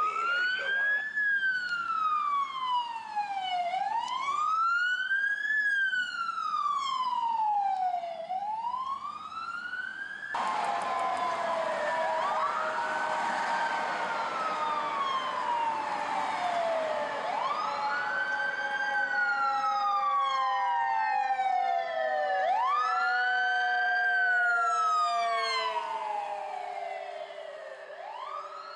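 LAFD emergency vehicle sirens on rigs responding to a call: an electronic wail rising and falling about every four and a half seconds. About ten seconds in it gives way to a wail with a quick rise and slow fall, over a mechanical siren tone slowly winding down in pitch.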